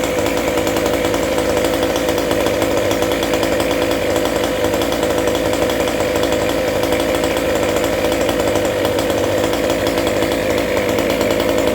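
29cc Goped scooter's small two-stroke engine running steadily at a constant speed, its pitch wavering only slightly.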